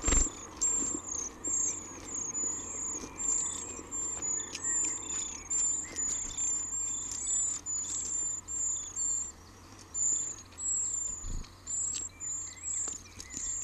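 Eurasian treecreeper nestlings begging in the nest: a run of thin, very high-pitched calls, about two or three a second, easing briefly past the middle. A knock at the very start and a duller thump near the end.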